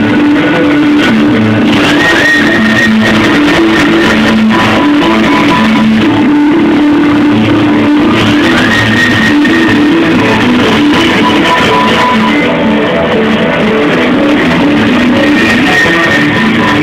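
A live rock band playing loud, with guitar and drums.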